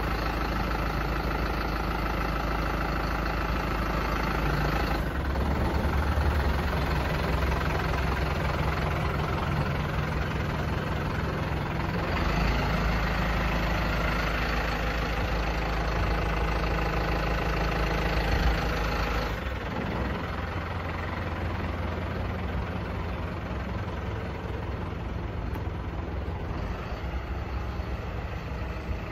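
A truck's diesel engine idling steadily. Its low hum shifts in tone a few times.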